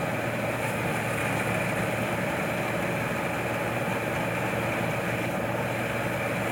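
Combine harvester's engine running steadily at a constant speed.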